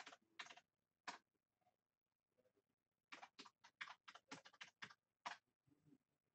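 Faint typing on a computer keyboard: a few scattered keystrokes, then after a pause a quick run of about ten keystrokes.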